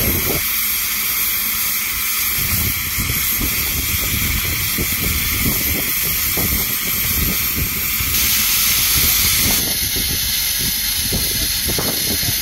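Double Fairlie steam locomotive Merddin Emrys hissing steadily as steam escapes low at the front by its cylinders.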